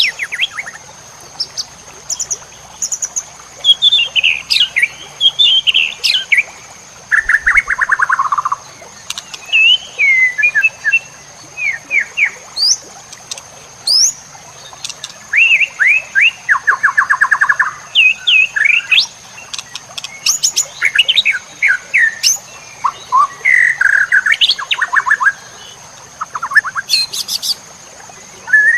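White-rumped shama (murai batu) singing a varied song of whistled sweeps, rapid buzzy trills and sharp clicks, in phrases broken by short pauses.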